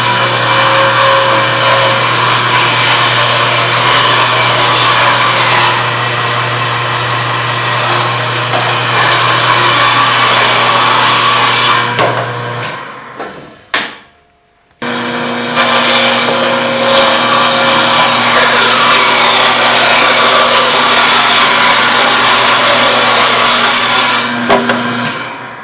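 Table saw running and ripping a board: a steady motor hum under the noise of the blade cutting through wood. The sound dies away about 13 seconds in, and a second run starts about 15 seconds in and stops near the end.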